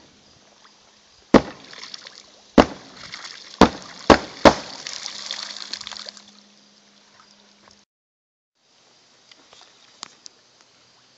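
Glock 26 9mm pistol fired underwater, held just below the surface: five sharp shots in about three seconds, the last three close together. Each is followed by a hiss of disturbed water and bubbles that dies away a couple of seconds after the last shot. A few fainter watery clicks come near the end.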